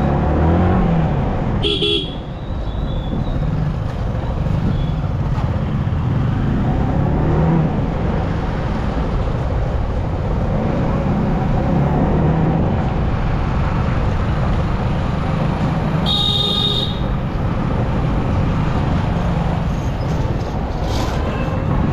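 Yamaha R15M motorcycle's single-cylinder engine running steadily while riding through street traffic, with vehicle horns honking: a short toot near the start and a longer, roughly one-second honk later on.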